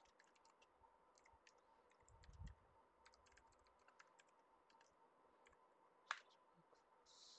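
Faint computer keyboard typing: quick, irregular key clicks, with a low thump about two seconds in and one sharper, louder key strike about six seconds in.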